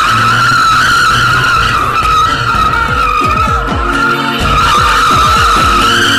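Black Mazda Miata's tyres squealing continuously as the car slides around in circles. Its four-cylinder engine revs rise and fall underneath, most noticeably in the second half.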